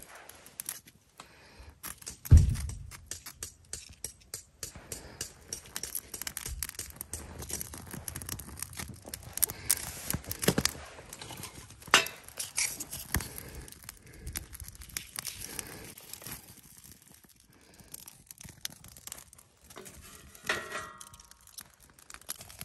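Scattered, irregular clicks, knocks and scrapes, with one loud knock about two seconds in.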